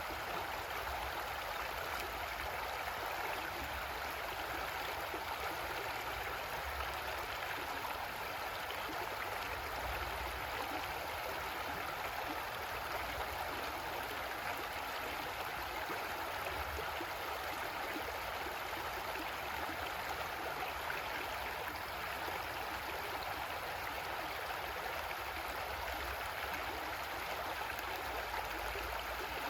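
Creek water flowing and splashing over rocks, a steady even rush.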